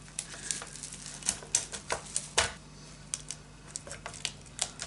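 Scattered light clicks and taps of a circuit board and small parts being handled inside an opened BOSS RC-505 looper, the loudest about two and a half seconds in.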